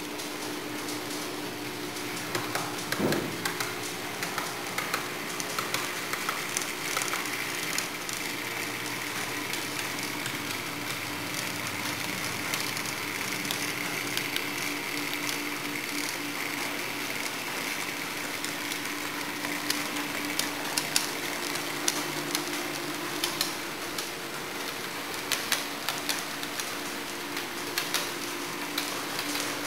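Model electric locomotive of the Paulista 'Baratinha' running on a layout: a steady electric motor hum with a higher whine, and scattered sharp clicks, with one louder knock about three seconds in.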